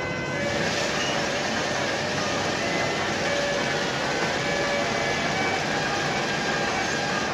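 Steady, unbroken din of a factory belt conveyor and its machinery running, carrying filled sugar bags, with a few faint steady tones over the noise.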